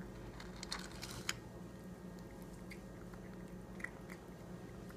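A Maine Coon–Norwegian Forest Cat mix crunching dry kibble: a quick cluster of sharp crunches about a second in, then a few scattered ones.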